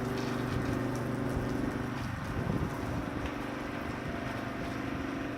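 Pressure washer's engine running steadily: an even, unchanging hum with a light hiss over it.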